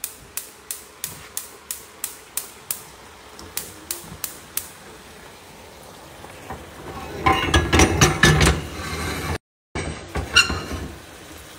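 Gas hob spark igniter clicking about three times a second for a few seconds while the burner under the skillet is lit. About seven seconds in comes a louder clatter of cookware lasting a couple of seconds.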